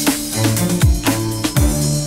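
Background music with a steady beat: deep, pitch-dropping bass drum hits over sustained bass notes.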